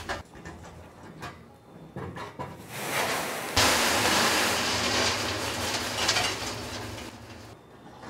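A sack of feed raw material is emptied into a factory intake hopper. About three and a half seconds in, a loud rushing hiss of the material pouring in starts suddenly and fades out after about four seconds, over a steady machinery hum. A few knocks of the sack being handled come before it.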